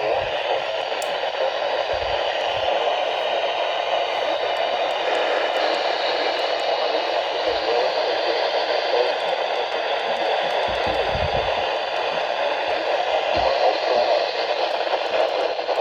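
Steady static hiss from a weather radio receiver's speaker: even noise with no clear voice or alert tones in it.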